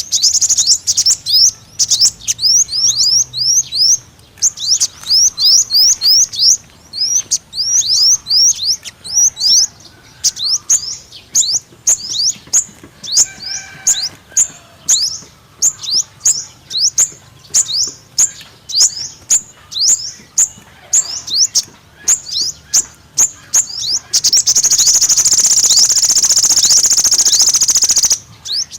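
Five-colour sunbird calling: a fast run of short, high chirps, each dropping in pitch, several a second. Near the end they merge for a few seconds into one dense, unbroken twitter.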